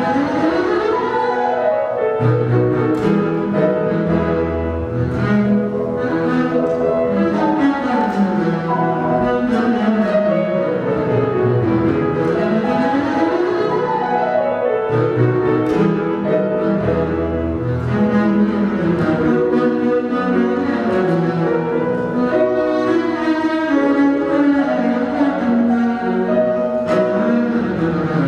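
Double bass played with the bow, accompanied by grand piano. The bass plays fast runs that sweep up and down in pitch.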